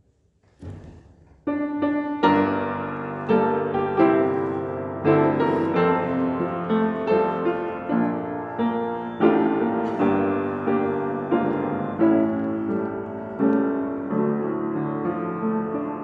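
Piano playing slow chords, starting about a second and a half in after a brief hush.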